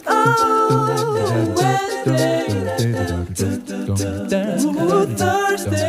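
Background a cappella vocal music: layered voices singing with a low sung bass line, and short percussive clicks among them.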